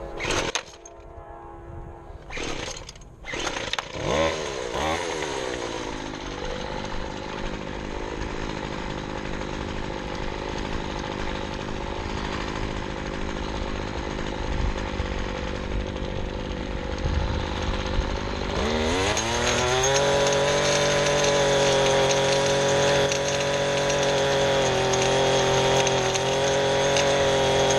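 Small engine of a handheld power lawn tool, such as a string trimmer or edger. After a few short sharp noises near the start, it speeds up about four seconds in and runs at part throttle. Near the twenty-second mark it revs up to a steady higher speed.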